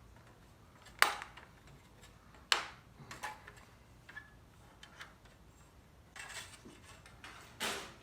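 Metal rudder parts clanking and scraping as they are fitted together to line up the drilled bolt holes. There are a few sharp clanks, the loudest about a second in and again about two and a half seconds in, then a scrape and one more clank near the end.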